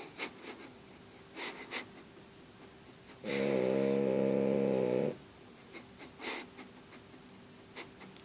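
A sleeping pet lying on its back, snoring: one loud snore of about two seconds a little past the middle, with faint short snuffles in the quiet breaths before and after. This pet snores only when on its back.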